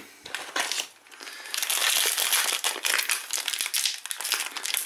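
Foil trading-card pack (Panini Prizm) crinkling as it is handled, quiet scattered rustles at first, then dense, loud crackling from about a second and a half in.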